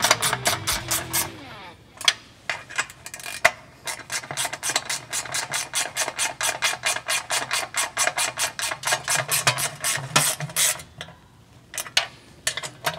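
Hand ratchet wrench clicking in quick runs of about seven clicks a second as bolts are run in, with pauses between runs and a long run in the middle.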